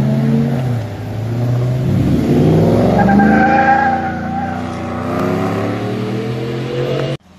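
Car engines revving and accelerating hard as cars pull away, the engine note climbing and dropping several times. The sound cuts off suddenly near the end.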